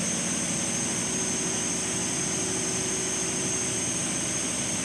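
Large V12 twin-turbocharged diesel generator set running steadily, a constant engine drone with a steady high-pitched whine above it.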